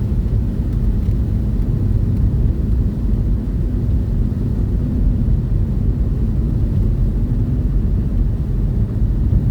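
Steady low rumble of engine and tyre noise inside a moving vehicle's cab.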